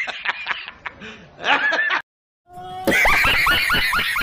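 A man laughing hard. After a brief silence about halfway through, another man laughs louder in quick, rhythmic bursts, about five a second.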